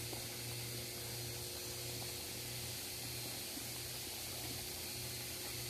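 Steady, even background hiss with a low hum underneath; no distinct sound events.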